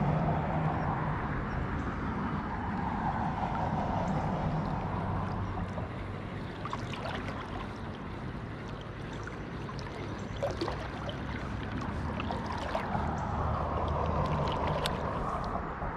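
Steady rush of flowing river water with a low hum under it, and scattered light ticks and clicks in the second half.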